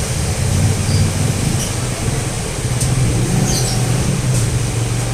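Steady low rumble under an even hiss, with a few faint high chirps and ticks.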